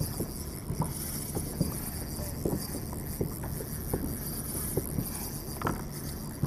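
Spinning reel being cranked on a retrieve: a steady faint high whirr that stops near the end, over irregular light knocks and lapping water.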